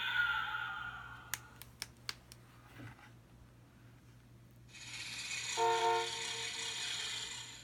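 Sound-effect clips playing from an Usborne Night Sounds noisy book's small speaker. A hissy recorded sound fades out, a few sharp clicks follow, and then another hissy clip with a few short pitched notes starts about halfway through.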